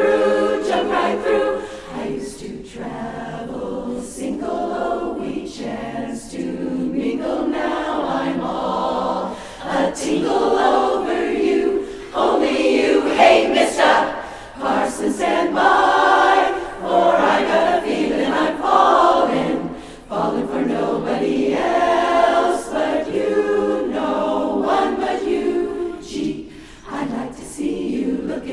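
A cappella chorus singing a song in phrases, with short breaks between phrases.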